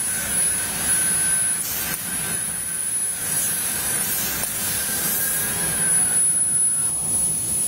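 CNC laser cutter running while cutting MDF: a steady rush of air from its air-assist and exhaust, with a thin high-pitched whine that drops out briefly twice. A fainter whistle stops about six seconds in.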